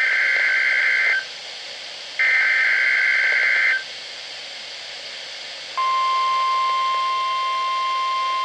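NOAA Weather Radio Required Weekly Test tones heard over a weather radio receiver with background hiss. Two bursts of the warbling two-tone SAME digital header, each about a second and a half, then after a pause the steady 1050 Hz warning alarm tone starts about six seconds in.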